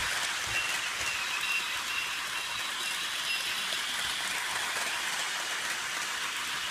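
Motorized toy train running around a plastic track: a steady whirring, rattling hiss from its small motor and wheels.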